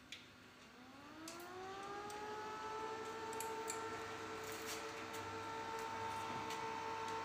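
Home-built class-D full-bridge power amplifier with an SMPS supply being switched on: a click, then a whine that rises in pitch over about two seconds and holds steady as it powers up.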